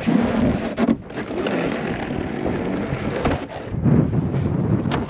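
Snowmobile engine running, with wind on the microphone and a few sharp knocks.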